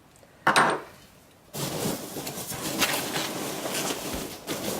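A short knock about half a second in, then plastic packaging crinkling and rustling as it is handled.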